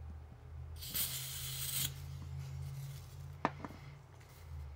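Butane hissing for about a second from the refill can's nozzle at the torch lighter's fill valve, followed by two light knocks about three and a half seconds in, under a steady low hum.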